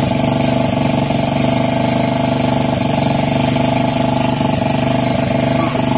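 An engine aboard a fishing boat running steadily at a constant speed, a continuous drone with a few faint knocks over it.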